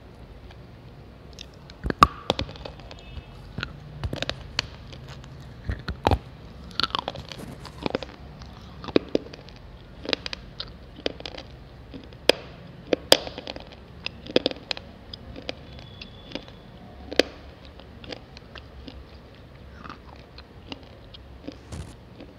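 Slate pencil being bitten and chewed close to the microphone: an irregular string of sharp, dry crunches with short pauses between bites, loudest about two seconds in.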